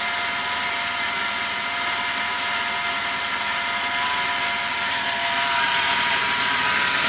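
Massey Ferguson 50C backhoe's engine running steadily, its note shifting up a little about five seconds in.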